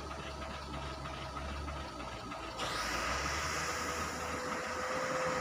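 Heavy diesel engines of a twelve-wheel lorry and a wheel loader running, a steady low rumble. About two and a half seconds in, the engine noise suddenly gets louder and fuller, with a faint steady whine over it.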